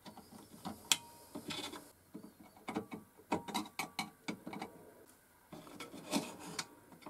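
Irregular small metallic clicks and short rattles as a screwdriver works the screw on a wind-up gramophone's speed-control shaft and the brass speed lever is moved on the motor board.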